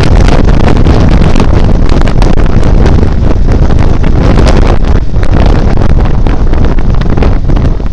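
Heavy wind buffeting on the microphone of a moving Benelli TRK 502 motorcycle, with its parallel-twin engine running underneath.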